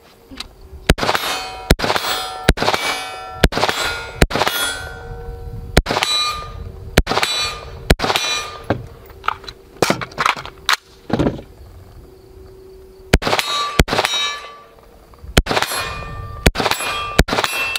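Sig MCX Spear LT 5.56 rifle fired in steady single shots, about one a second, each followed by the ringing clang of a hit steel target. There is a pause of about two seconds about two-thirds of the way through, then the shots resume.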